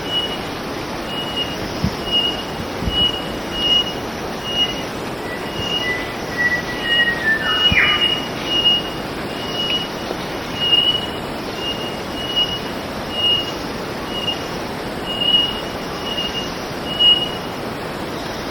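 Drab whistler calling, a short high whistled note repeated evenly a little more than once a second. One whistle falls in pitch about halfway through.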